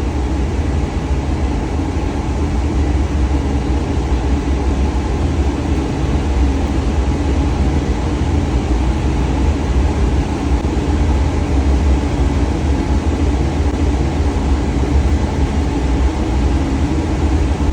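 Boiler room machinery running: a steady low drone.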